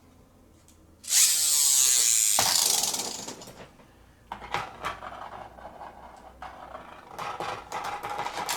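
Plastic ripcord yanked through a Bakugan launcher: a loud ratcheting whirr about a second in that falls in pitch over a second or so. Scattered plastic clicks and rattles follow as the spun Bakugan moves in the arena.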